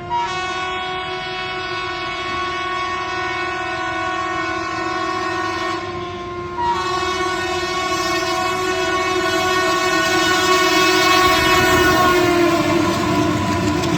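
WDG3A diesel locomotive's horn sounding a long, steady multi-note blast. It breaks off briefly about six seconds in, then resumes louder.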